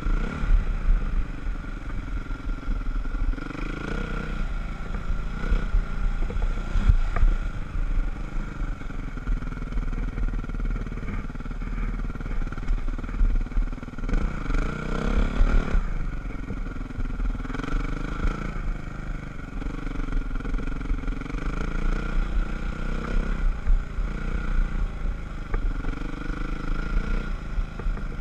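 Dirt bike engine heard from the rider's helmet camera, its pitch repeatedly rising and falling as the throttle is opened and closed and the gears are changed, with a strong rev-up about halfway through.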